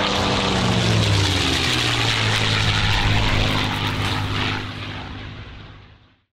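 Propeller airplane flyby: the engine's pitch drops as it passes, then it runs on steadily and fades away near the end.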